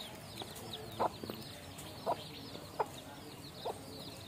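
A hen clucking in short single calls about once a second, four times, over the continuous high, falling peeps of her young chicks.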